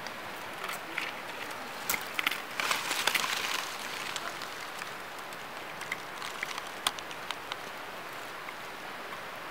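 Dry leaf litter crackling and rustling in scattered sharp clicks over a steady hiss, thickest in a burst about two to three and a half seconds in, then thinning to a few single crackles.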